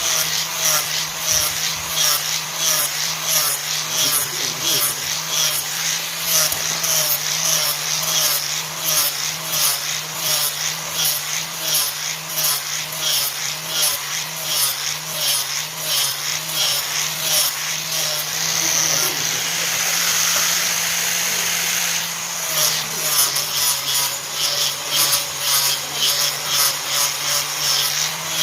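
Handheld power tool's motor running steadily while it is worked on the axe in rhythmic back-and-forth strokes, about two a second. Around two-thirds of the way through, the strokes stop for a few seconds and it runs smoothly, then the strokes resume.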